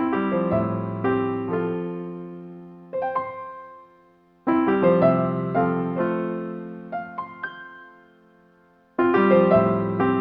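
Background piano music: a short, gentle phrase of notes that starts sharply three times, about every four and a half seconds, and fades away in between.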